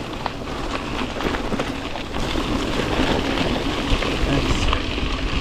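Gravel bike tyres rolling fast over a dirt and gravel road, a steady rush of tyre noise with wind rumbling on the microphone.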